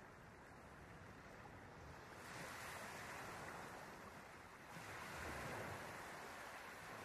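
Faint rushing of ocean water mixed with wind on the microphone, a steady hiss that swells twice, about two and five seconds in.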